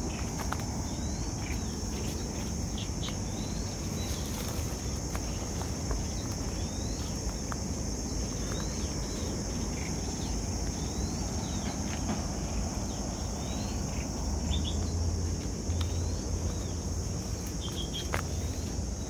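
A steady, high-pitched chorus of insects singing without a break, with short faint chirps scattered over it.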